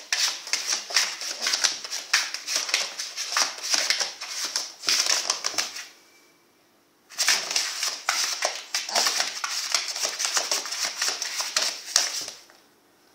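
Pug puppy's claws scratching and digging frantically at a cardboard box wall, a dense run of rapid rasping scratches. It stops for about a second around six seconds in, then starts again.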